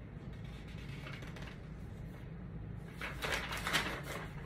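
A sheet of paper rustling and crinkling as it is handled, in a short flurry about three seconds in, over a steady low room hum.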